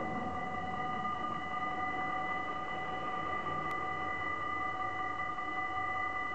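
Electronic warning bells of a Dutch automatic half-barrier (AHOB) level crossing ringing steadily as a continuous tone of several pitches. The sound signals that the crossing is closing for an approaching train.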